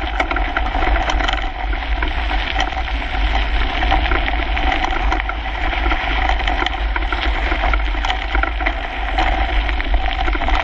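Kona Coiler mountain bike rolling fast over a gravel trail, heard through a handlebar-mounted action camera: a steady low wind rumble with constant rattling and chatter of the tyres and bike over the loose surface.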